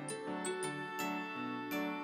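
Background music: a light melody of quick, ringing pitched notes over repeated low bass notes.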